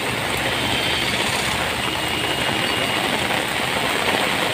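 Fast-flowing river in flood, its water rushing in a steady, even roar of noise.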